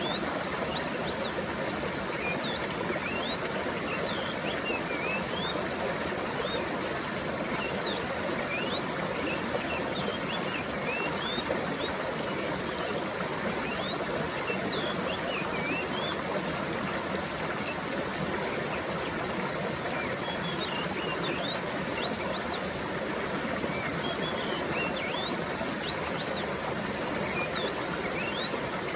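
Flowing water running steadily, with many small birds calling over it in short, quick chirps and whistles throughout.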